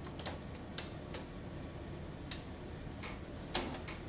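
Irregular small, sharp clicks and ticks, about half a dozen, as fingers pick at and peel blue shipping tape off the plastic casing of an Epson L3150 printer.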